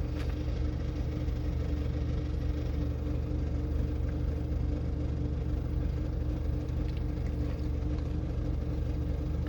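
Steady low mechanical drone with a constant hum, like an idling engine or running motor, unchanging throughout.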